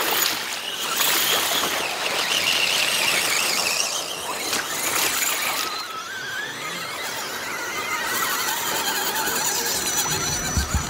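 Scale RC 4x4 truck's motor and gears whining, the pitch gliding up and down as it is throttled through mud and slush. Near the end there are a couple of low thumps as it passes close by.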